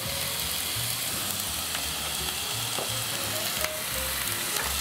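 Diced onion and red bell pepper sizzling as they fry in a pan, a steady hiss. A sharp click sounds about three and a half seconds in.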